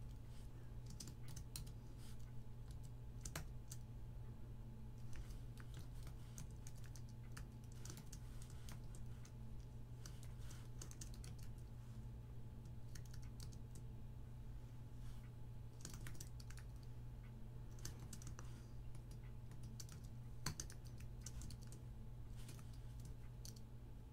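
Typing on a computer keyboard: irregular runs of keystrokes with short pauses, a couple of strikes standing out louder, over a faint steady hum.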